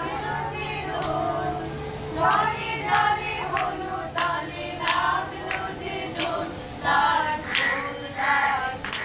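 A small group of women singing a song together, with sharp claps about once a second keeping time.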